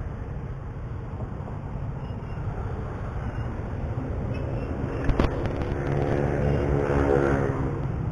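Riding a motorcycle: steady wind and road rumble with the engine running. A sharp click comes about five seconds in, then a droning engine note swells and fades over the last few seconds.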